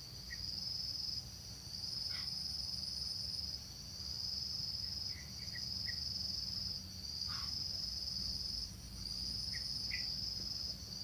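Insects trilling steadily at a high pitch, in long phrases of a couple of seconds broken by short pauses, with a few faint short chirps underneath.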